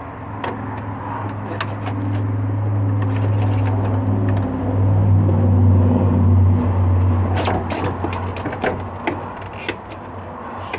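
A motor vehicle engine hums steadily, growing louder about halfway through and then fading away. A few sharp clicks come near the end.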